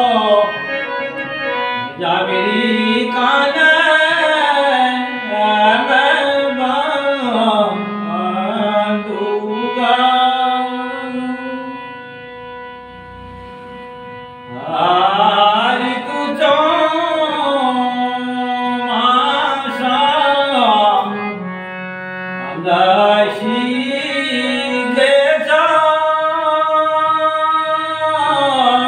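A man singing a Kumaoni nyoli folk song in long, wavering, drawn-out phrases, pausing for a couple of seconds about halfway through. A steady drone sounds underneath.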